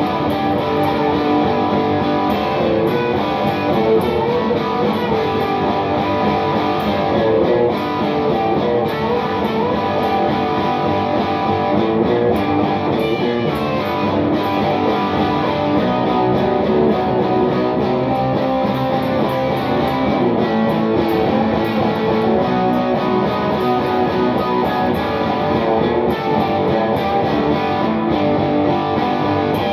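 Electric guitar being played, a continuous run of notes and chords with no pauses.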